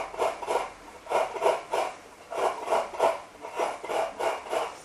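Coconut half being scraped by hand against the round serrated metal blade of a traditional wooden coconut-grater stool, grating the white flesh into flakes. Short scraping strokes come about three to four a second in quick runs, with brief pauses between runs.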